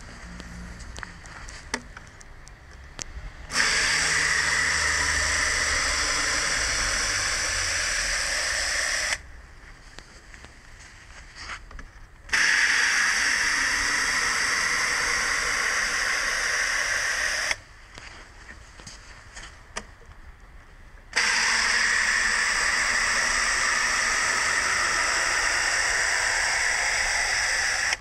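Water spraying from a plastic drink-bottle watering spout onto the soil, a steady hiss that starts and stops abruptly three times as the bottle is tipped to pour and then set back.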